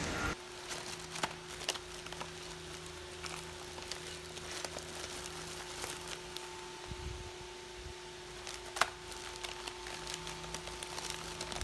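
Faint crinkling and rustling of a plastic treat bag being handled, with scattered small clicks, over a steady low hum.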